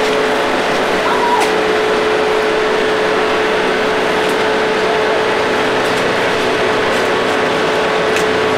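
Steady machine noise with a constant hum running under it, even in level throughout, with a few faint clicks.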